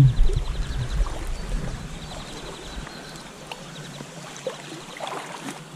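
Rapid ticking of a fly reel's click-and-pawl drag in short spells as a hooked fish runs and pulls line off the reel, over the steady rush of river water.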